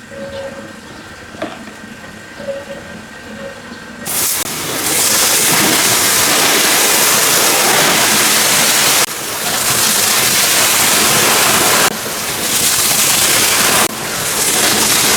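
A pressure washer's high-pressure water jet starts spraying suddenly about four seconds in, a loud, steady hiss of water blasting the tractor's surface. It breaks off briefly three times as the trigger is let go and squeezed again. Before the spray starts there is a quieter steady hum with a few small knocks.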